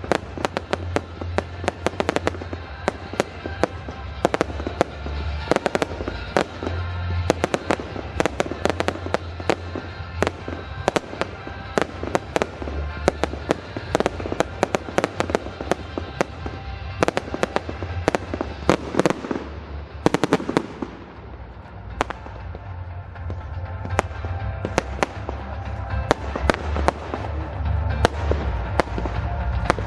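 Fireworks display: a dense run of bangs and crackling bursts, easing briefly about two-thirds of the way through before building again, with music playing underneath.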